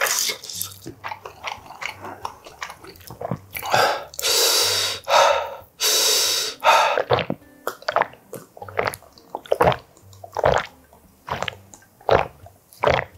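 Close-miked eating sounds: wet chewing and lip smacks as a run of short clicks, broken by a few long, loud breaths between about four and seven seconds in, then gulps of water near the end.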